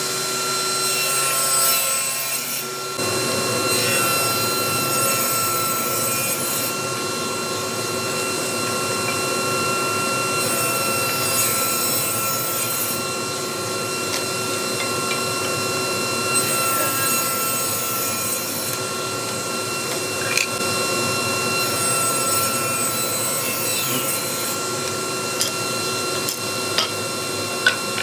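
Power saw running with a steady whine while ripping scrap hardwood into thin strips. A hissing cut noise rises and falls about every five to six seconds as each piece passes through the blade.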